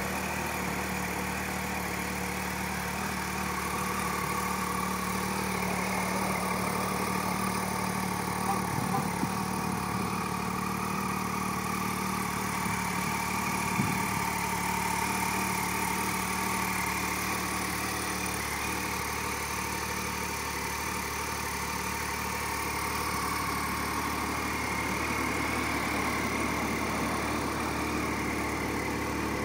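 2010 Triumph Street Triple's 675 cc inline three-cylinder engine idling steadily, with a couple of brief knocks partway through.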